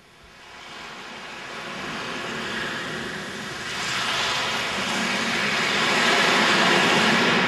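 A rushing, jet-like noise that builds gradually louder over several seconds, with no clear pitch.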